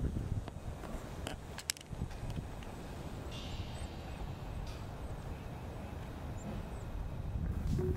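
Outdoor ambience: a steady low rumble with a few sharp clicks in the first couple of seconds and a brief hiss about three seconds in.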